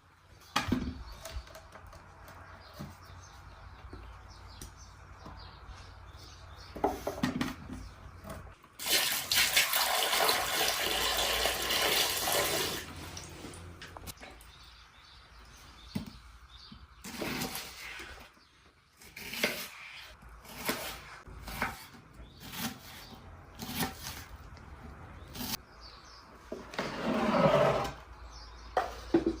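Water pouring and splashing, loudest for a few seconds about a third of the way in and again near the end, amid scattered knocks and handling sounds.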